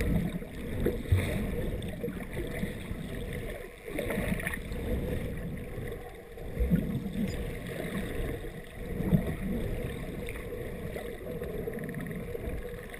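Muffled underwater water noise picked up through a GoPro's sealed dive housing: a dull low rumble with uneven swells of louder sloshing every second or two.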